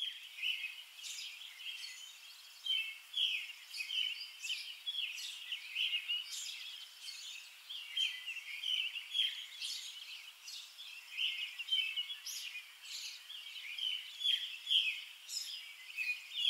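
Songbirds chirping: a steady stream of short, high chirps and twitters, several a second.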